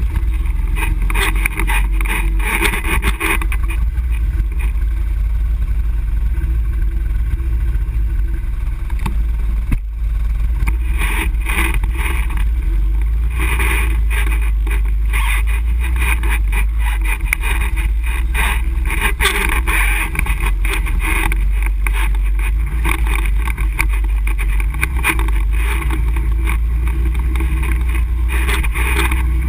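ATV engine running steadily, heard from a camera mounted on the quad, with rougher noise swelling and fading over the engine every few seconds.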